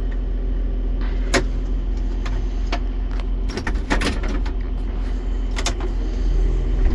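Farm tractor engine running steadily, with a few short sharp clanks or rattles over it.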